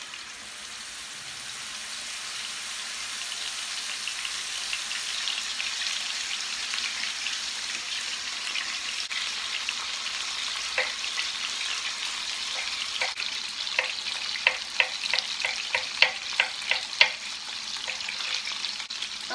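Panga fish fillets sizzling in hot oil in a frying pan, the sizzle growing louder over the first few seconds. From about halfway in, a knife slices mushrooms on a wooden cutting board: a run of sharp taps, about two or three a second, near the end.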